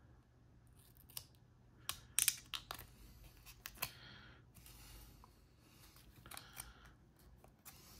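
Scissors snipping through thin aluminium sheet cut from a beer can: a string of irregular sharp snips with short scraping sounds between them, loudest about two seconds in.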